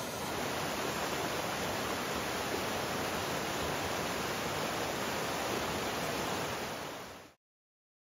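Steady rush of flowing water from a stream or waterfall, fading out about seven seconds in.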